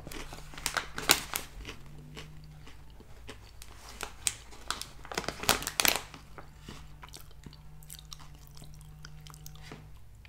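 Garden Veggie Straws, crisp hollow potato-starch snack sticks, being chewed with irregular crunches, loudest a little past a second in and again between five and six seconds.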